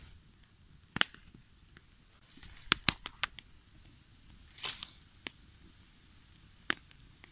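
Small open wood fire of dry twigs crackling, with sharp, irregular pops: one about a second in, a quick cluster around three seconds in, and a last one near the end, plus a brief hiss midway.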